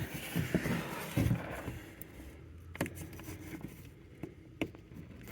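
Faint handling noise from plastic car door trim: some rustling, then a few sharp, separate clicks as a part held by a push clip is worked loose.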